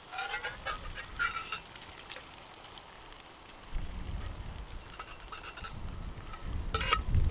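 Whisked egg and milk poured into a hot skillet of fried pork belly and potato, frying with a light crackle. A low rumble comes in about four seconds in, and near the end a fork scrapes and clinks against the metal cup.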